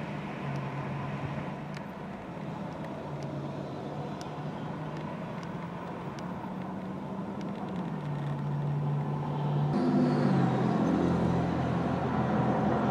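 Street traffic: car engines running with steady road noise, growing louder about two-thirds of the way through as an engine note rises.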